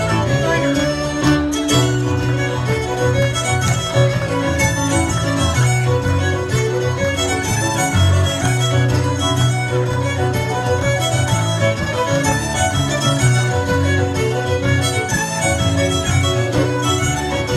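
Cape Breton fiddle music: fiddle playing a tune with keyboard accompaniment, continuous and without a break.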